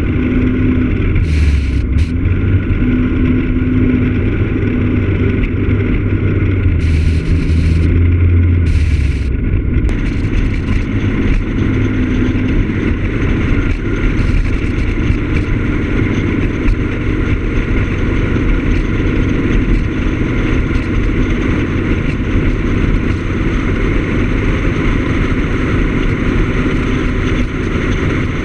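Piaggio X9 Evo maxi-scooter being ridden at road speed: a steady engine drone mixed with wind and road rush. The engine note is plainest in the first ten seconds or so, after which the rushing noise evens it out.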